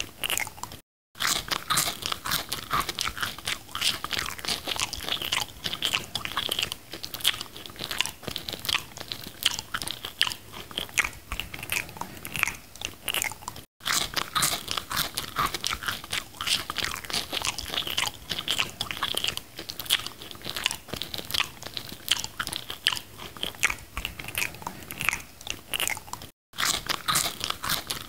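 Close-up mouth sounds of a person chewing a McDonald's burger: quick wet, squishy chewing and smacking that runs on without pause, broken by three brief gaps of silence.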